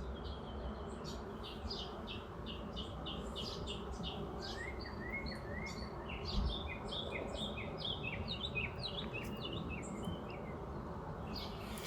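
Songbirds chirping and singing in short repeated notes and trills over a steady background hiss, with a run of quick rising notes about halfway through.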